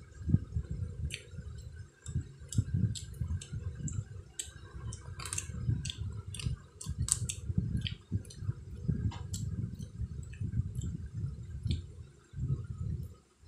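A boy chewing fried street food from a skewer close to the microphone, with wet mouth clicks and smacks scattered throughout.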